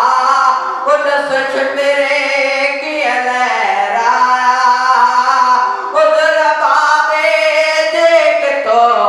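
A young man's solo voice singing a noha, a Shia mourning lament, in long held, wavering phrases with short breaks between them.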